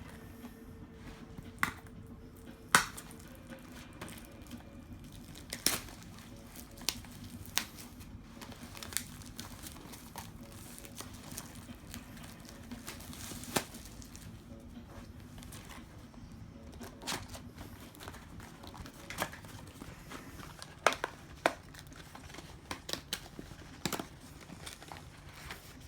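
Plastic shrink wrap being crinkled and torn off a sealed cardboard trading-card box, with scattered sharp crackles and taps as the wrapper and box are handled.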